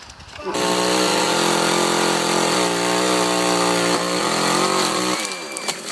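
Chainsaw engine running at high speed, starting abruptly about half a second in. Its pitch sags slightly in the middle, and it cuts off suddenly about five seconds in.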